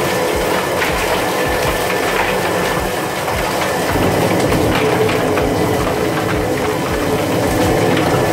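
Drum-type chicken plucker running: its spinning rubber-fingered base plate tumbles a scalded chicken against the drum wall with a steady mechanical clatter. Water from a hose sprays into the drum.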